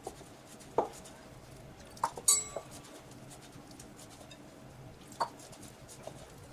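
Occasional light knocks and clinks of hands and fingers against a glass mixing bowl while rice-flour dough is mixed by hand. The loudest is a ringing clink a little over two seconds in.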